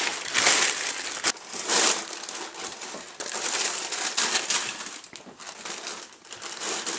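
Wax paper crinkling and rustling as it is handled, in irregular bursts.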